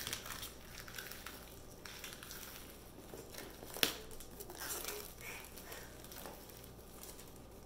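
Plastic shrink-wrap film being cut and peeled off a cardboard product box: faint crinkling and rustling, with one sharp click about four seconds in.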